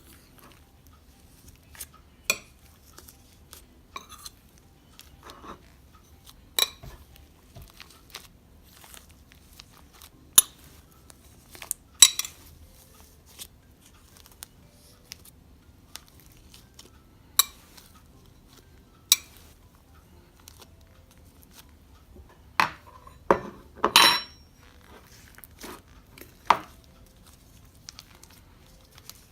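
Glossy slime mixed with foam rings being squished and worked by hand, giving scattered sharp clicks and pops a second or several apart, two of them loudest, one near the middle and one toward the end.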